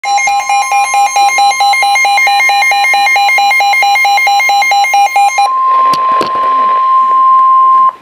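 Midland weather radio sounding its alert alarm, a loud rapid pulsed beeping, for a severe thunderstorm warning. About five and a half seconds in, the beeping gives way to the steady warning tone of the NOAA Weather Radio broadcast, which stops just before the end. A few knocks come about six seconds in.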